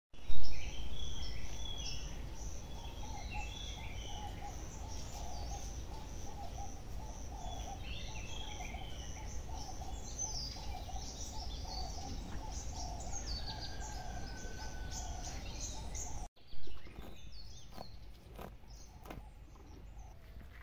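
Birds chirping and calling outdoors, with a high note pulsing a couple of times a second and a steady low rumble under it. There is a loud thump just after the start. About 16 s in the sound cuts to a quieter scene with a second thump and scattered clicks.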